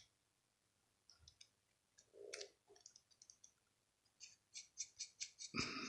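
Faint, small metallic clicks of a small screwdriver working a tiny screw into a spinning reel's metal body. The clicks are sparse at first, then come about five a second in the second half, with a louder handling noise near the end.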